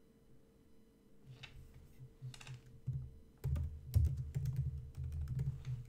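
Typing on a computer keyboard: a few scattered keystrokes, then a quick run of keys from about three and a half seconds in.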